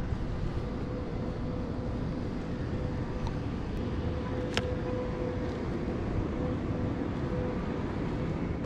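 Steady wind and road rumble from a bicycle rolling over concrete paving, with a single sharp click about halfway through.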